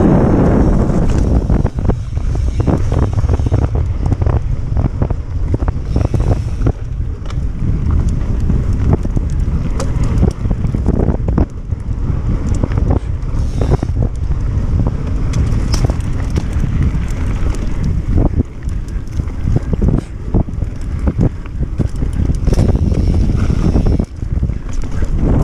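Wind noise rumbling on the camera microphone of a mountain bike descending a dirt singletrack at speed. Frequent short clicks and knocks come from the bike rattling over the trail throughout.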